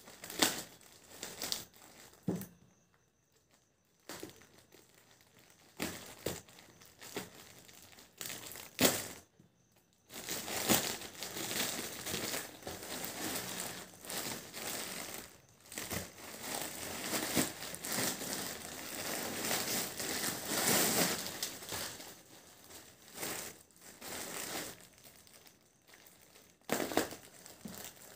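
A plastic courier mailer bag and clear plastic wrapping crinkling and rustling as they are handled and torn open. It comes in short bursts with pauses for the first few seconds, then a long stretch of steady crinkling, then breaks up into shorter bursts again near the end.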